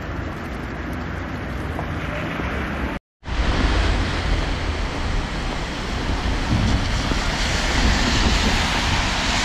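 Steady rushing wind noise on the microphone, a low rumble with hiss. It cuts out for a moment about three seconds in and comes back louder.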